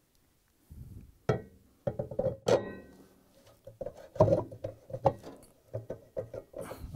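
Steel rotor of a Samsung washer's direct-drive motor clanking and ringing against the splined shaft as it is fitted. A few sharp metallic knocks with a short ring come in the first half, then a run of lighter clanks as the rotor is worked onto the shaft teeth.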